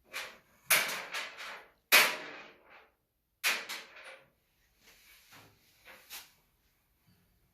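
Sharp metallic clanks and knocks from dryer parts being handled and fitted during reassembly: three loud hits about a second in, two seconds in and three and a half seconds in, then a few softer knocks.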